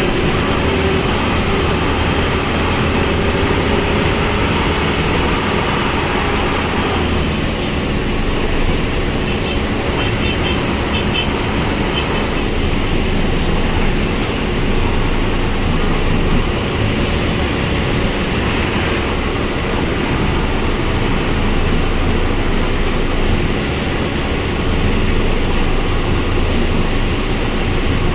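Volkswagen 17.230 OD bus running on the road, heard from inside, with its transmission growling (roncando).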